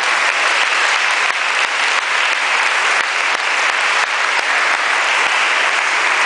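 A congregation applauding: a dense, steady round of clapping.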